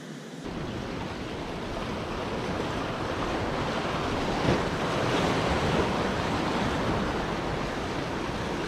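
Sea surf washing and breaking against the boulders of a rock jetty, swelling to its loudest about halfway through and then easing a little.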